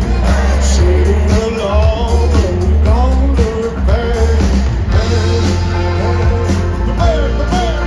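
Live pop-rock band music with singing and electric guitar, played loud over a stadium PA system, with heavy bass.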